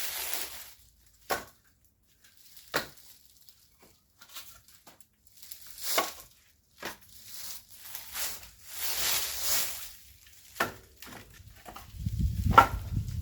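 Split oak firewood being handled and stacked: a handful of sharp wood-on-wood knocks a second or more apart as pieces are set down, with rustling and scraping between them. A low rumble comes in near the end.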